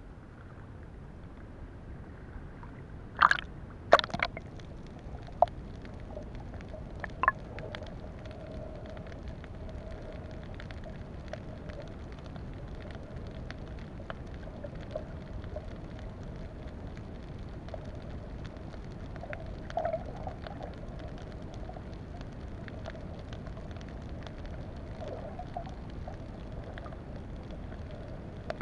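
Underwater ambience: a steady, muffled rush with a faint steady hum, and a few sharp clicks or knocks about three to seven seconds in.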